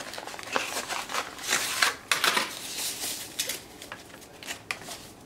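Cardboard and paper packaging rustling and scraping, with a few light clicks, as the e-file handpiece and its coiled cord are pulled out and unwrapped. The rustling dies down about four seconds in.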